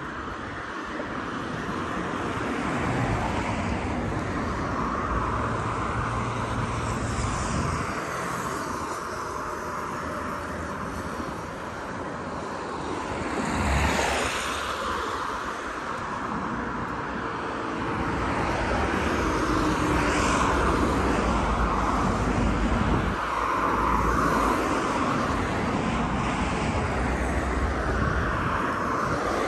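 Outdoor traffic noise: a steady wash of passing vehicles, with one louder vehicle going by about 14 seconds in.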